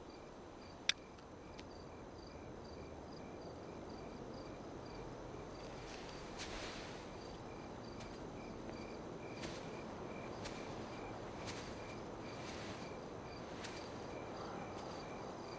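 Crickets chirping in an even, pulsing rhythm over a low night-air hiss. About a second in, a single sharp metallic click as a metal lighter is set down on stone.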